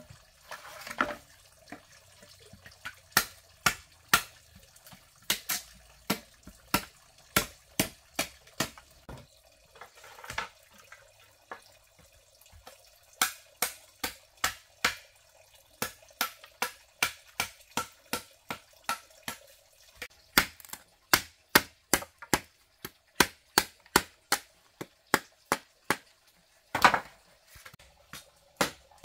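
Machete striking and chopping bamboo: a long run of sharp knocks, sparse at first and then about two a second, with a few longer, noisier strokes among them.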